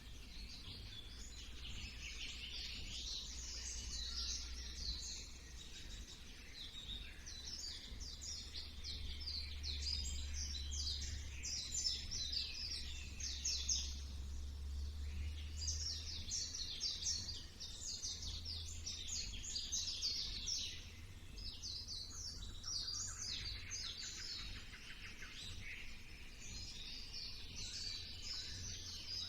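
Many songbirds chirping and trilling at once in a dense, overlapping chorus, with a steady low rumble beneath.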